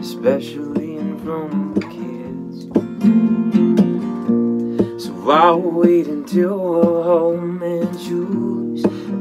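Acoustic guitar strummed in a steady rhythm, played with a capo. A man's voice sings briefly about halfway through.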